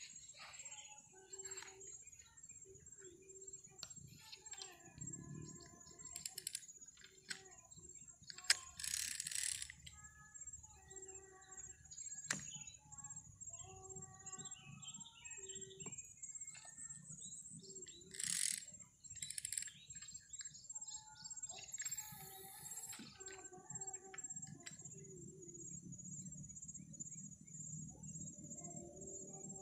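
Riverside ambience: a steady high-pitched insect drone with birds chirping on and off. Two short, louder noise bursts come about nine and eighteen seconds in.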